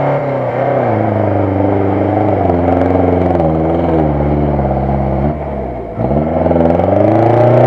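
UAZ-469 off-roader's engine revving hard under load as it ploughs through deep mud, the revs rising and falling; about five seconds in the revs sag briefly, then climb again.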